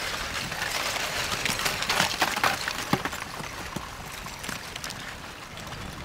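Front of an advancing blocky lava flow: cooling crust cracking, with loose blocks clinking, rattling and tumbling over one another. The crackling thickens and gets louder about two seconds in, then eases.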